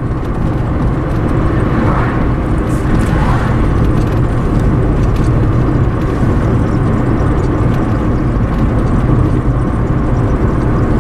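Steady road and engine noise heard inside a moving car's cabin, with a slight swell about two to three seconds in as an oncoming car passes.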